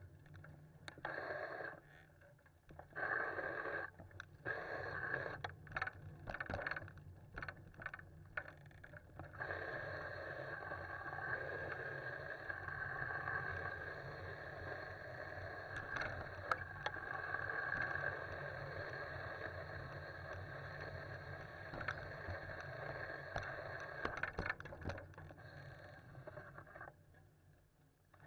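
Bicycle riding noise picked up by a handlebar-mounted camera: rolling rush and rattle that comes and goes with a few sharp knocks for the first several seconds, then runs steadily until it drops away near the end.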